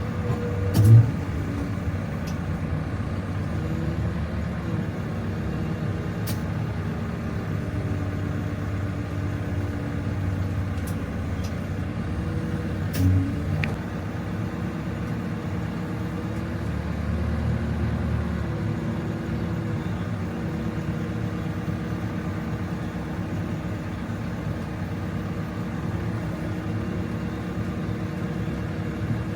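Backhoe loader engine running steadily with a low hum, with two brief louder knocks, one about a second in and one near the middle.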